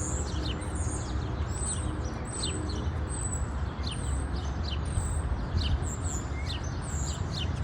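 A small songbird calling over and over, thin high chirps about every 0.7 s, over a steady low rumble and hiss.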